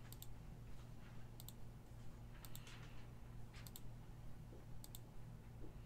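Computer mouse button clicked five times, about once every second and a bit, each click a quick double tick of press and release, over a steady low hum.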